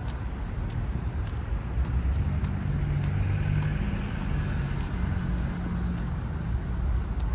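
Car engine running: a low, steady hum that comes up about two seconds in and dies away near the end, over a constant low rumble.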